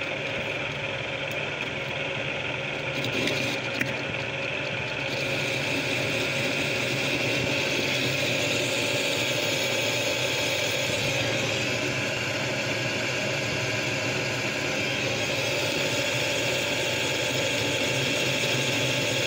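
Harrison 13-inch lathe running with its chuck spinning: a steady mechanical hum and gear whine with a light rattle, a little louder and brighter from about five seconds in.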